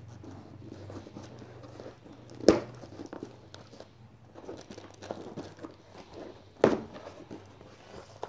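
Cardboard box flaps being handled and pushed aside, rustling and scraping, with two sharp knocks, one about two and a half seconds in and another about four seconds later.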